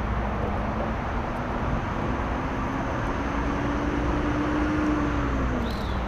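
Steady low outdoor rumble with a faint motor-like hum that slowly rises in pitch, then drops away near the end.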